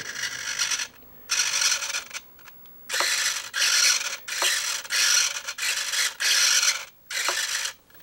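Small hobby servos whirring through their gears as a servo tester sweeps the model's elevator pushrods back and forth. The whirring comes in about nine short bursts, each under a second long, with brief pauses between them.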